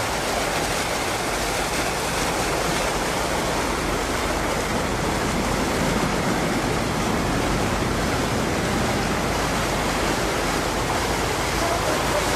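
Steady rushing of water churned up as a wakeboarder is towed through a flooded road.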